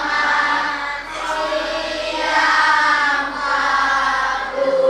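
A group of children singing together in unison in long held notes.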